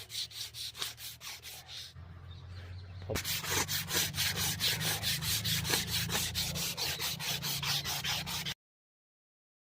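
Rapid rhythmic rubbing strokes, about five a second. They ease off about two seconds in and come back louder about three seconds in, over a low steady hum.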